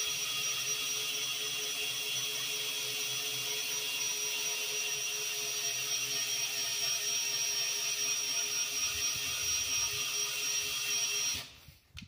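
Ryobi cordless drill running steadily in low gear, turning the height-adjustment shaft of a Woodland Mills sawmill to move the saw head. It stops about eleven and a half seconds in.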